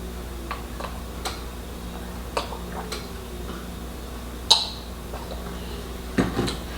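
Eating at a table: a scatter of small clicks and smacks, with one sharper click about four and a half seconds in, over a steady low hum.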